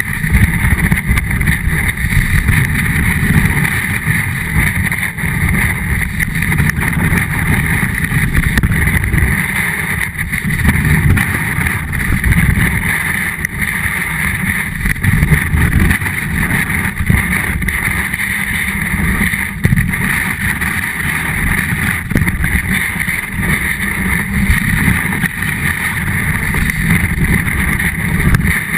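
Snowboard sliding over snow and wind buffeting a board-mounted action camera: a loud, steady deep rumble with a constant hiss over it and no letup.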